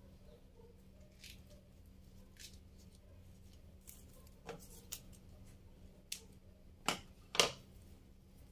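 Hands working string around plant cuttings and a support stake: light rustling and a few short, sharp clicks, the two loudest close together near the end, over a faint steady hum.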